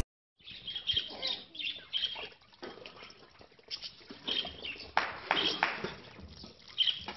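Water splashing and slopping in a small tub as a toddler's hands slap and stir it, in short uneven splashes, with small birds chirping in the background.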